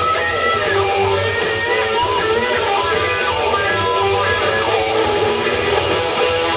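Live rock band playing: electric guitars over bass guitar and drums, with a steady low beat underneath.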